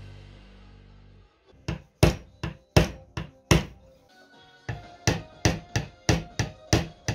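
A hammer tapping a glued wooden tailplane down onto a wooden toy airplane's fuselage to seat the joint. The knocks come in two runs, six and then eight, about three a second.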